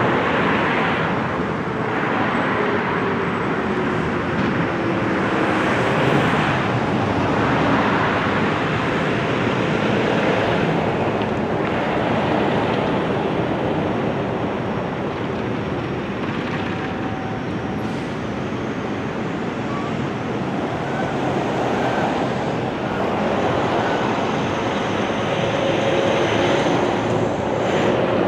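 Steady road traffic noise with wind buffeting the microphone. Faint distant outdoor warning siren tones sit underneath, one falling slowly in pitch over the first several seconds.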